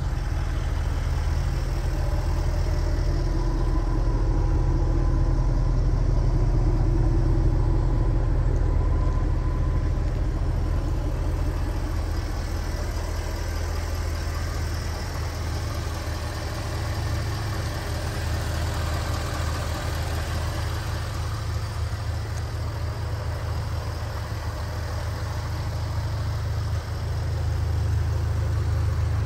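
Jaguar XKR's 5.0-litre supercharged V8 idling steadily, rising slightly in level near the end.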